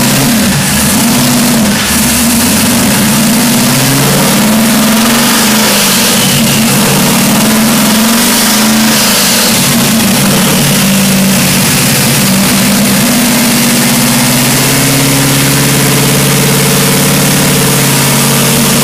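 Twin-turbo LS2 V8 running hard on a chassis dyno, very loud. Its revs surge up and down unevenly as the rear wheels break loose and spin on the rollers, then settle into a steadier note past the middle.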